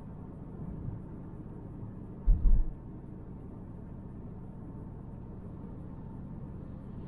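Cabin road and engine noise of a 2018 Volvo V90 T5 Cross Country with its 2.0-litre turbocharged four-cylinder, driving: a steady low rumble, broken by a short cluster of low thumps about two and a half seconds in.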